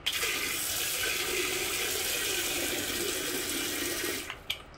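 Handheld bidet sprayer of a Trustmi hot and cold bidet jetting a steady hissing stream of water into the toilet bowl, splashing on the bowl water. It starts suddenly and cuts off about four seconds in.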